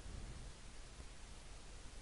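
Faint steady hiss of room tone with a little low rumble, and no distinct sound.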